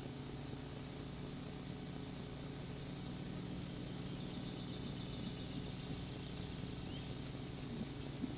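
Steady hiss and low hum under faint outdoor ambience. A faint high wavering call runs through the middle, and a few light ticks or rustles come near the end.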